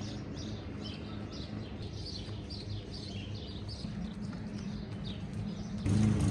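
Many small songbirds chirping and twittering over a steady low hum. Near the end a louder low hum cuts in suddenly.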